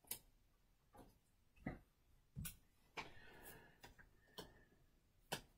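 Near silence with faint, irregular taps and light rustles, about eight in all, from trading cards and plastic sleeves being handled on a table.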